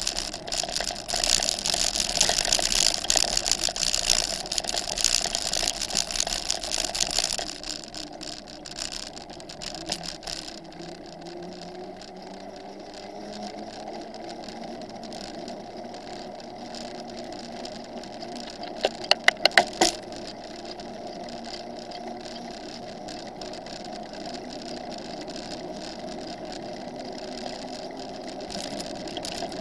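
Bicycle tyres on a gravel path, a loud rough crunching rattle, giving way after about seven seconds to a quieter steady rolling hum on asphalt. A quick run of sharp clicks comes about two-thirds of the way through.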